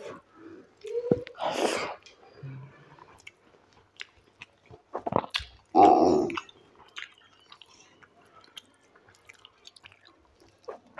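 Close-miked chewing and wet mouth clicks of a person eating rice and dal by hand. Two louder bursts come about a second and a half in and about six seconds in.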